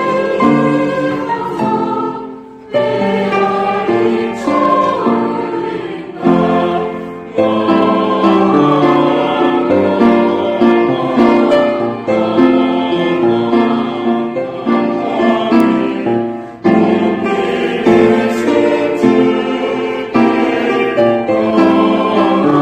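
Church choir singing a Christmas hymn in several voices with instrumental accompaniment, pausing briefly between phrases.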